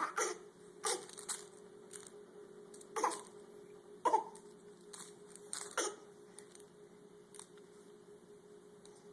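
A baby making a series of short, abrupt noises, about six in the first six seconds, then quieter, over a steady low hum.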